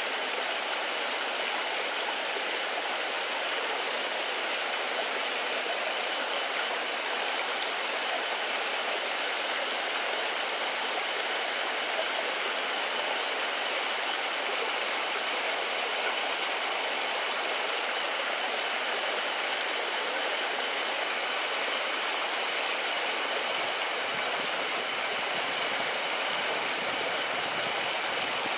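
Steady rush of a forest stream flowing over rocks, with a faint high steady tone over it and faint high pulses about twice a second during the first half.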